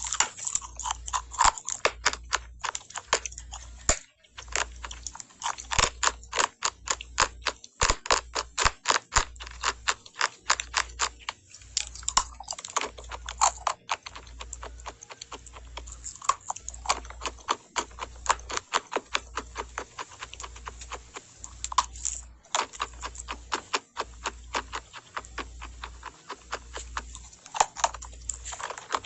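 Close-up crisp crunching of compressed cornstarch being chewed, in dense runs of clicks broken by a few brief pauses.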